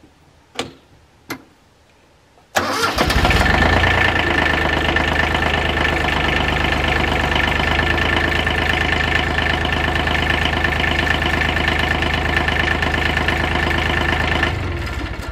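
Kioti LB1914 compact tractor's diesel engine starting: a couple of clicks, then about two and a half seconds in it catches almost at once and runs steadily. It dies away near the end.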